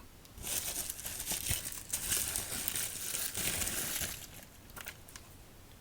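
Packaging crinkling and rustling as it is handled, for about four seconds, then a few light taps.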